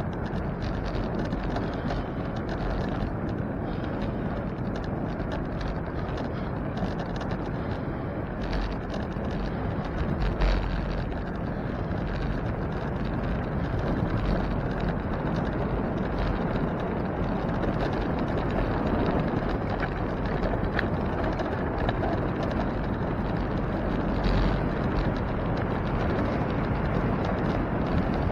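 Steady wind buffeting the microphone and rolling noise from a bicycle in motion, with scattered light knocks and rattles.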